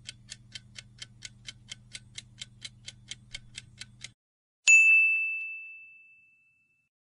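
Quiz countdown-timer sound effect: clock-like ticks, about four a second over a low hum, stopping about four seconds in. A single bright ding chime then rings out and fades, marking the answer reveal.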